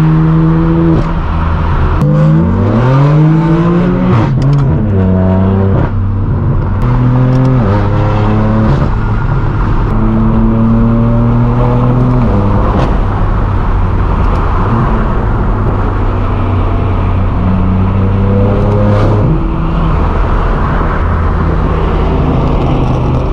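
Straight-piped BMW M4 F82's twin-turbo inline-six running loud through its non-resonated AWE Track exhaust while driving. The revs climb steeply and fall back about two to four seconds in, and the exhaust note steps up and down in pitch several times as the gears change.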